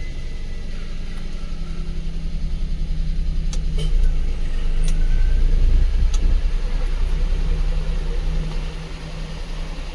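Maruti Suzuki Alto's three-cylinder petrol engine running steadily at idle, with a few light clicks in the middle. There is no belt squeal: the newly fitted and tensioned AC belt is running quietly.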